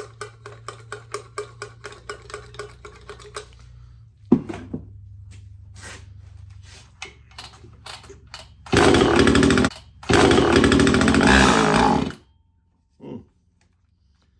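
Homelite Super EZ chainsaw being pull-started on half choke after a shot of gas in the carb. Rapid clicking for the first few seconds and a sharp knock about four seconds in, then the engine fires and runs twice, about a second and then about two seconds, and dies each time.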